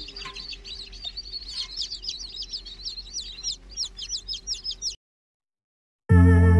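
Newly hatched chicks peeping: quick, high peeps, about three a second, growing louder. The peeping cuts off about five seconds in, and after a second of silence loud music begins near the end.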